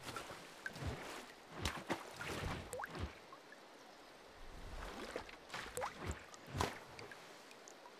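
Water drip and splash sound effects: scattered small plops, splashes and trickles, a few of them with a quick rising pitch like drops falling into water, at a low level.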